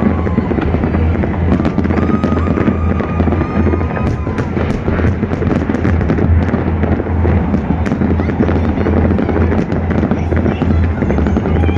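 Fireworks display: a dense, continuous barrage of bangs and rapid crackling over a steady low rumble.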